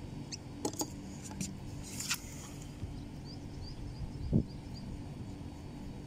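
Scattered sharp clicks and one louder knock from tools and wire being handled while crimp thimbles are fitted to the ends of an air conditioner's compressor wires. A quick run of short high chirps comes a little after three seconds, over a steady low hum.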